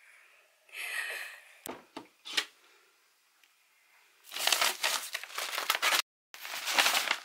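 Packaging crinkling and rustling in bursts as an item is pulled out and handled, after a few light knocks.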